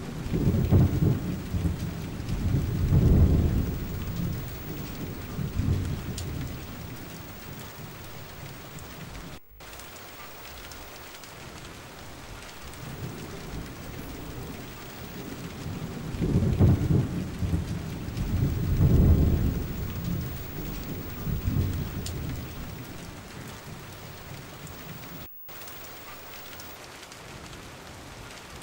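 Steady rain with two long rolls of low thunder, one at the start and another about sixteen seconds in. The sound cuts out for an instant twice.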